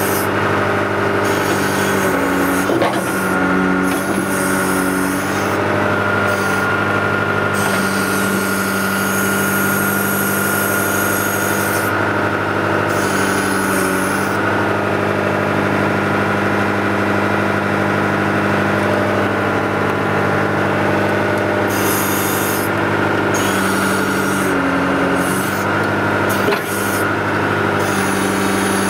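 John Deere 310D backhoe loader's diesel engine running, with a steady hydraulic whine and hiss as the backhoe works. The engine note dips under load a couple of seconds in and again near the end, with a couple of sharp knocks.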